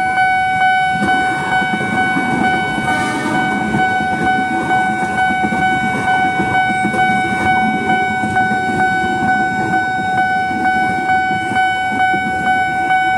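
Railway level-crossing alarm sounding a loud, steady tone while a KRL electric commuter train rumbles through the crossing.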